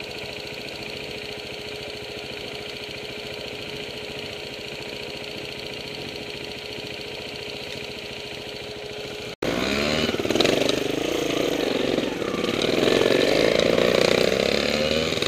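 A trials motorcycle engine running steadily at idle close to the microphone. Then, after an abrupt cut about nine seconds in, a trials motorcycle engine is louder and revs up and down as the bike climbs the trail.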